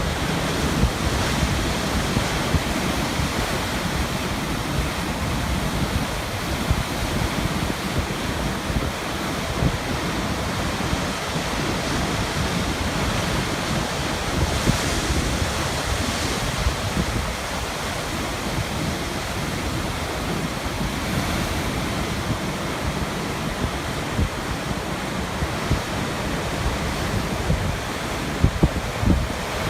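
Sea waves washing and breaking on rocks: a continuous rush of surf with a deep, restless rumble underneath, swelling a little about halfway through.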